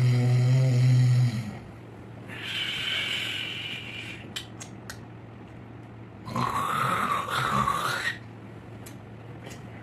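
A man snoring: a loud, low, buzzing snore that stops about a second in, then breathy hissing and a few clicks, and a second, louder breath a few seconds later with a wavering whistle in it.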